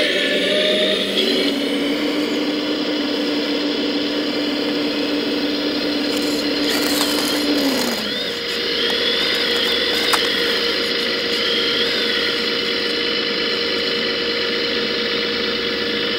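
Electric hydraulic pump of a 1:14 scale RC hydraulic excavator running with a steady whine. About eight seconds in the tone drops out and comes back higher in pitch, and a single click is heard a couple of seconds later.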